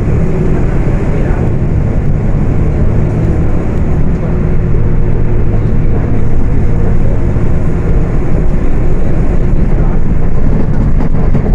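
Rear-mounted diesel engine of a Volksbus 18.280 OTS city bus running under way, a steady drone that gets a little louder about halfway through.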